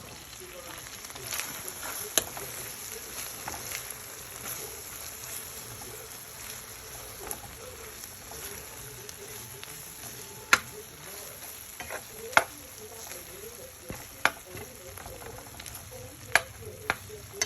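Fried rice and corned beef sizzling steadily in a frying pan while being stirred, with sharp knocks of a utensil against the pan, several of them in the second half.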